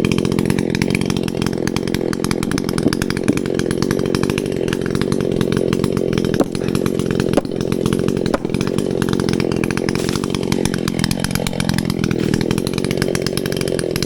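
Echo CS-620PW two-stroke chainsaw running steadily at high revs, cutting through the wood of a large dead tree, with small dips in engine load a little past the middle.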